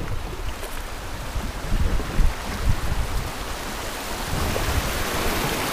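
Wind buffeting the microphone over a steady rush of river water, the water growing louder toward the end.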